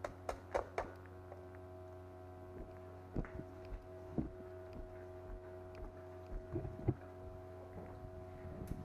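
A steady hum with a few scattered sharp clicks and knocks.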